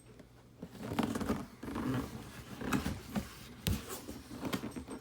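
Cardboard heater box being handled: an irregular run of rustles, scrapes and knocks that starts about a second in.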